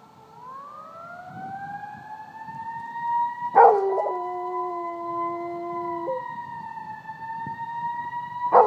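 An emergency-vehicle siren wails with a slow rising pitch while a Rottweiler howls along with it. One long, steady howl starts sharply about three and a half seconds in and stops about six seconds in, and a second howl begins right at the end.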